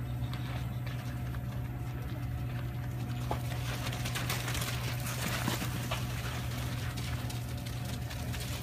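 Hooves of a small flock of running sheep and footsteps scuffing on a gravel pen floor, as a cattle dog chases them. The pattering is thickest about four to six seconds in, over a steady low hum.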